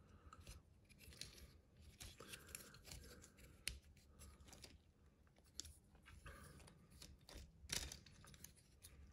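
Faint handling noise from a hard-plastic toy motorcycle being turned over in the hands: fingers rubbing on plastic and small clicks, with a sharper click about a third of the way in and another near the end.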